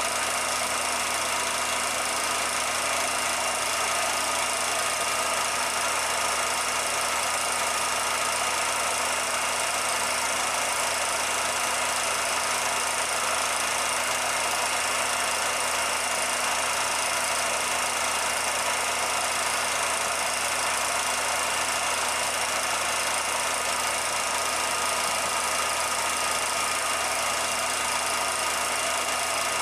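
Steady machine running noise: an even hiss with a few constant humming tones, unchanging in level throughout.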